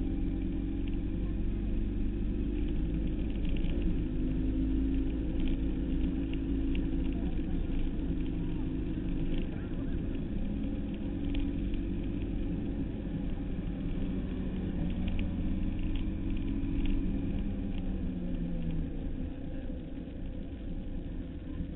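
Suzuki Hayabusa 1300's inline-four engine running at road speed, heard from the rider's seat together with a steady low wind rumble over the microphone. The engine note shifts a little in pitch late on.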